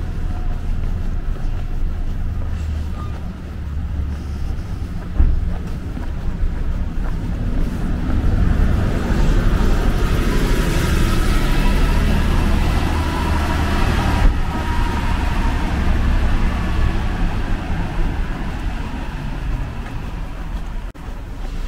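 City bus passing close by, its engine and tyre noise building, peaking about halfway through and then fading, over a steady low rumble.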